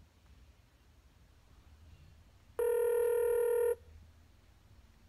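Telephone ringback tone heard on an outgoing call: one steady electronic ring a little over a second long, starting about halfway through, with a faint low hum around it.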